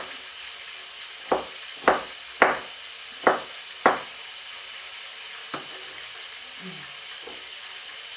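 Food sizzling faintly in a frying pan, with a utensil knocking against the pan five times in the first four seconds as the food is stirred.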